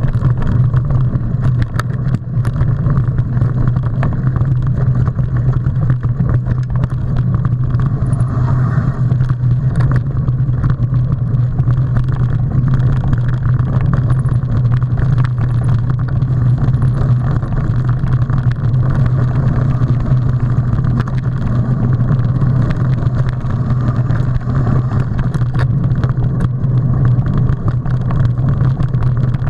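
Mountain bike riding a dirt forest trail, heard as a steady, loud rumble of wind and rolling on the camera's microphone, with many scattered knocks and rattles as the bike goes over bumps.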